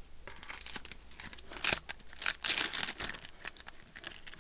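Yu-Gi-Oh! booster pack's foil wrapper crinkling and crackling as it is handled, in an irregular run of crackles.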